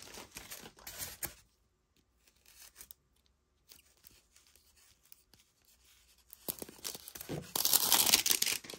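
Thin plastic wrapping from a toy surprise ball being torn open and crinkled. It comes in a short burst in the first second and a louder stretch of rustling near the end, with a mostly quiet gap between.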